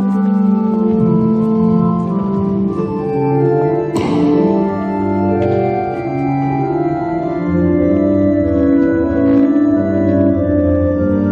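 Church organ playing slow, sustained chords that shift every second or so. A brief noisy sound cuts across it about four seconds in.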